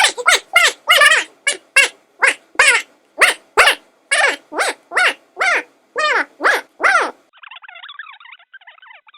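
Rapid string of short, high-pitched nonsense syllables, a gibberish 'blah blah' voice effect, about two to three a second. About seven seconds in it gives way to a quieter, thin, phone-filtered voice babbling unintelligibly.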